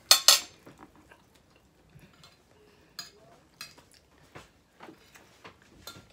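Metal spoons clinking and scraping on ceramic plates during a meal: a loud clatter right at the start, then scattered light clinks.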